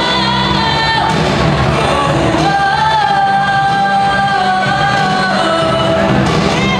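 A teenage girl singing solo into a microphone over instrumental accompaniment, holding one long note in the middle.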